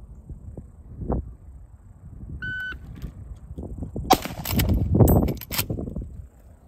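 A short electronic shot-timer beep, then about a second and a half later a single shot from a .357 Magnum Marlin 1894 lever-action carbine. A run of sharp clacks and knocks follows the shot.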